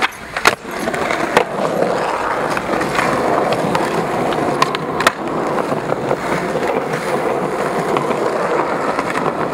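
Skateboard landing off a set of stone steps with a sharp clack about half a second in, followed by a second knock. Then its wheels roll steadily over concrete paving, with a few light clicks along the way.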